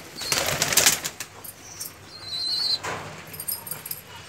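Pigeons flapping their wings in a short flurry in the first second, with a brief high squeak a little after two seconds and another short flap near three seconds.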